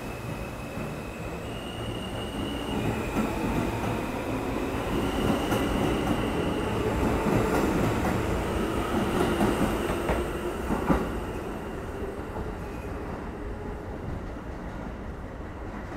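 R160A-2 subway train pulling out of an elevated station and accelerating past: a rumble of wheels on rail with a high electric whine that steps up in pitch, growing louder midway with a sharp clack about eleven seconds in, then fading as the train draws away.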